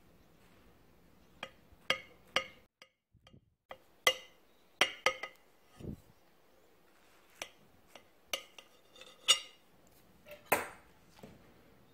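Metal table knife clinking and scraping against a ceramic plate while cutting through a soft soufflé pancake: a dozen or so short clinks, each ringing briefly, with one duller thud about six seconds in.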